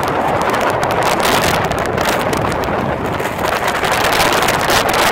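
Strong wind buffeting the microphone: a loud, steady rush of noise broken by rapid crackling gusts.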